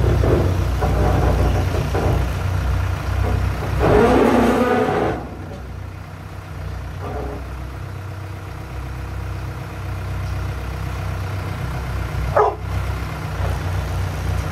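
Old rough-terrain forklift's engine working under load while moving a shipping container, with a louder surge of revving about four seconds in, then settling to a quieter steady run. A single short sharp knock comes near the end.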